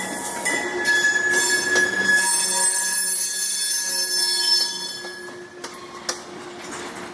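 Freight train's steel wheels squealing against the rails as it rolls by: a high, ringing squeal of several tones that fades about five seconds in. A couple of sharp clicks follow.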